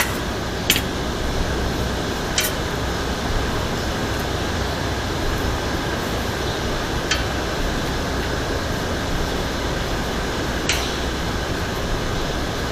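Steady background hum with a few sharp, isolated clicks, about four spread across, like small metal parts or tools being handled.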